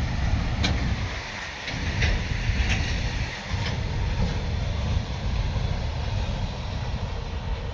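Goods train wagons rolling on the rails: an uneven low rumble with a few sharp clanks.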